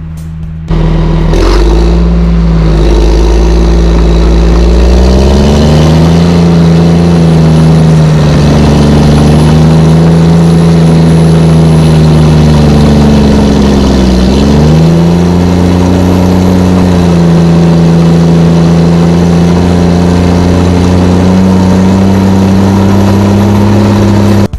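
Diesel engine of a Cat NextGen D7 dozer running hard, cutting in about a second in. Engine speed rises about five seconds in, dips briefly near the middle, then holds steady.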